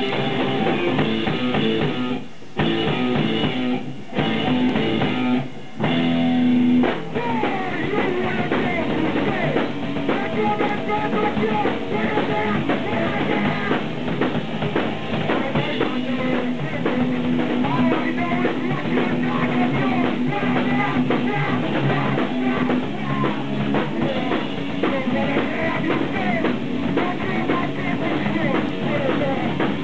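Live punk rock band playing: drum kit, electric guitar and bass guitar, with a vocalist on a handheld microphone. The song opens with stop-start hits that break off three times in the first six seconds, then the full band plays on continuously.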